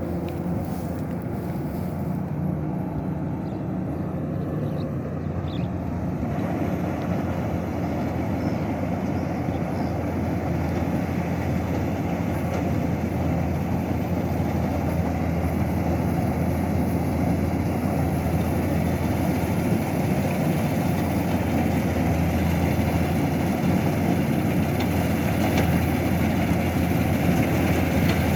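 Kubota combine harvester's diesel engine running steadily under load, with the clatter and whir of its cutting and threshing gear, growing gradually louder.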